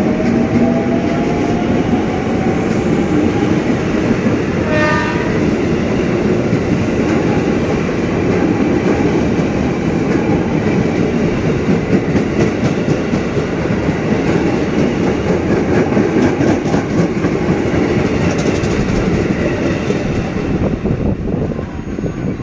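JR 205 series electric commuter train pulling out of the platform, a steady loud rumble of wheels on rails with a motor whine rising in pitch in the first few seconds as it accelerates. A short horn blast sounds about five seconds in.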